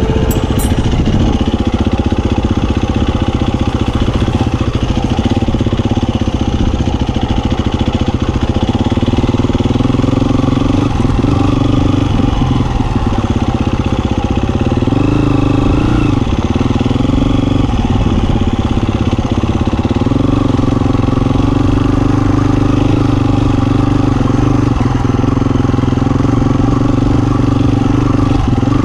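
Husqvarna FE350 enduro bike's single-cylinder four-stroke engine running on the move, its pitch dropping and rising a few times as the rider works the throttle and gears.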